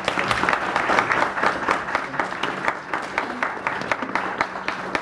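Audience applauding. Dense clapping that thins out toward the end.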